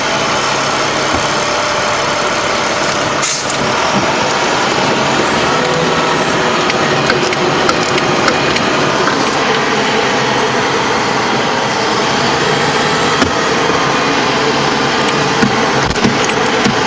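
LAV III armoured vehicle's diesel engine and drivetrain running loud and steady, heard from inside the hull while it drives. A sharp knock comes about three seconds in, and a few more knocks and rattles follow in the second half.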